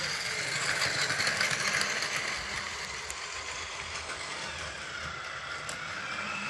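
Plarail Keihan 10000 series toy train running on plastic track: its battery motor whirs steadily, a little louder about a second in.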